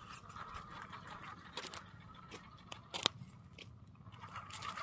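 Small RC buggy driving over dry dirt clods: its electric motor whines faintly while the tyres crunch and click over the crumbly ground, with a sharper crack about three seconds in.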